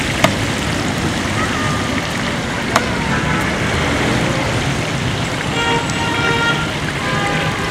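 Potato chips sizzling in deep-frying oil in a large pot, a steady hiss, with road traffic behind and a horn-like tone for about a second near the end. Two sharp clicks in the first three seconds.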